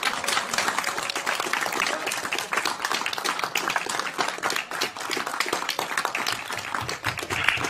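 A crowd of people applauding, with dense, sustained clapping and no letup.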